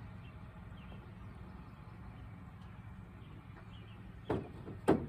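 Two sharp knocks about half a second apart near the end, typical of a fuel can or fuel cap being handled while refuelling a weed eater, over a steady low hum and faint bird chirps.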